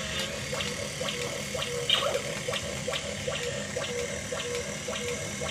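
Battery-powered toy robot's small electric motor and gears whirring steadily, with a regular ticking about three times a second.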